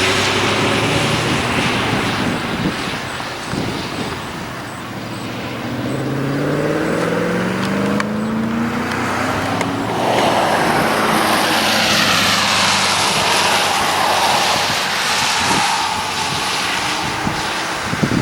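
Motor vehicle driving: the engine speeds up with a rising pitch over road and wind noise, and a louder rush of road and wind noise sets in about ten seconds in.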